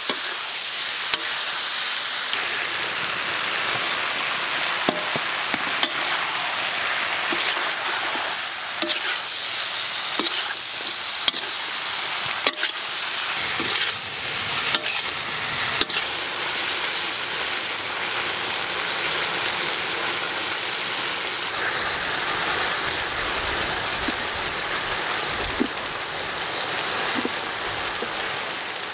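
Baby shark pieces with lemongrass and chilies sizzling steadily in a hot wok, stir-fried with a metal ladle that knocks and scrapes against the pan, the knocks mostly in the first half.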